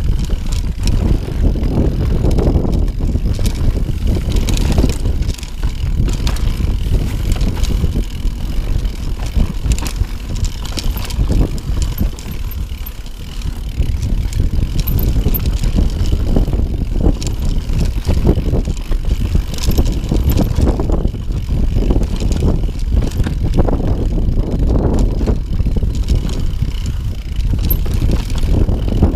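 Mountain bike riding down a rocky trail: a dense rumble of tyres over stones, with frequent rattles and knocks from the bike and wind on the microphone.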